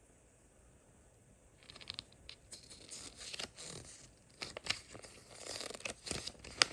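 Packaging being handled: irregular crinkling and rustling with small scrapes and clicks, starting about a second and a half in, with one sharp click near the end.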